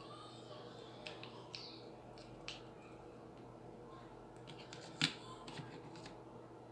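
A few light clicks and taps of small objects being handled on a desk, the sharpest about five seconds in, over a faint steady hum.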